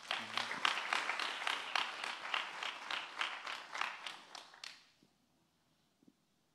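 Audience applauding: many hands clapping at once, which dies away about five seconds in.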